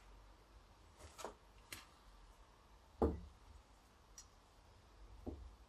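A few light, separate clicks and taps of small carburettor parts being handled and fitted, the loudest about three seconds in.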